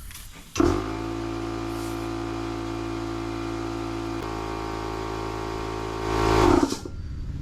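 Small domestic electric air compressor running steadily as it pumps up a motorcycle tyre, switching on abruptly and cutting off shortly before the end after a brief surge of noise.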